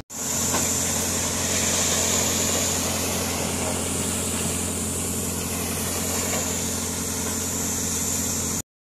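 Diesel engine of a JCB tracked excavator running steadily as it works a gravel pile, with a steady high hiss over the engine hum. The sound cuts off abruptly near the end.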